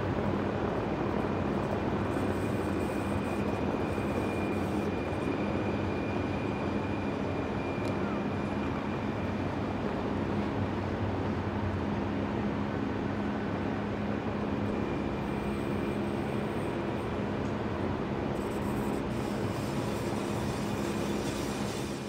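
Rhaetian Railway electric passenger train rolling past close by: a steady rumble of wheels on the track, with a faint thin high whine over it through roughly the first half.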